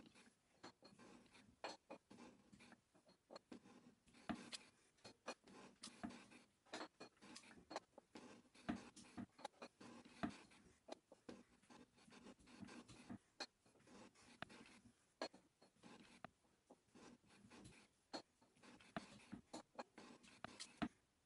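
Parting insert shaping an external slot in a cast iron (GG25) workpiece by hand strokes of a milling machine quill: an irregular series of quiet scraping strokes and sharp ticks, roughly one or two a second.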